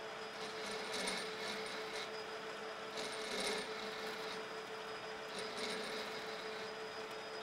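Metal lathe running with a steady hum while a tool bit takes a facing cut on a spinning flywheel hub. The cutting noise rises in short surges several times as the tool is fed in, strongest about three and a half seconds in.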